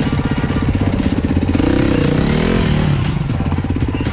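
Enduro motorcycle engines running at low revs on a rocky climb, with quick even firing pulses and a rev that rises and falls in the middle.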